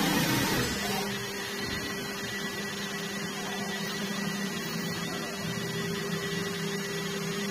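CNC wood turning and milling machine running, a steady electric hum with a thin high whine above it, a little louder and rougher in the first second.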